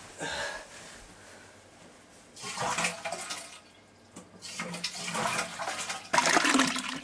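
Toilet flushing: rushing water that comes in surges and is loudest in the last second.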